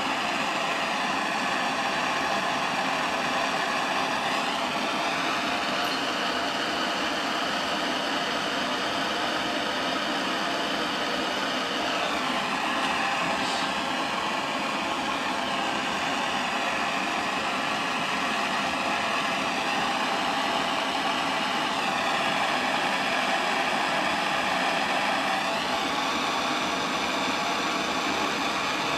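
Steady whirring of an electric blower motor, its tone shifting a little every few seconds.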